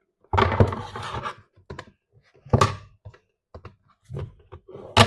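A perfume's packaging being handled and worked open by hand: three loud rustling, scraping bursts, the first the longest, with small clicks and taps between them.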